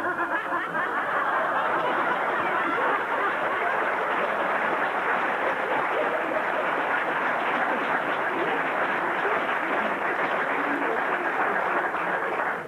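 Audience laughing, a dense and steady sound that starts suddenly and dies away near the end.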